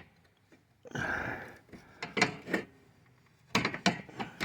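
Crowbar scraping and knocking against a Chevrolet Silverado's hood latch as it is worked in and twisted: a short scrape about a second in, then several sharp metallic clicks, bunched near the end.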